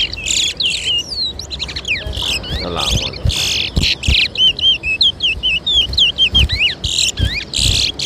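Caged twa-twas (chestnut-bellied seed finches) singing: fast runs of quick chirped and swooping whistled notes, with sharp clicks mixed in.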